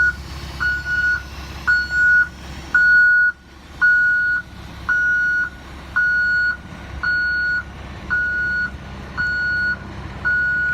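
Vehicle backup alarm beeping about once a second, each beep a steady high tone about half a second long, over the low running of the bus's engine.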